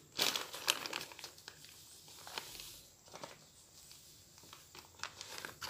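Plastic bag crinkling and crackling in the hands, loudest in the first second, then fainter scattered crackles while powder is poured from it.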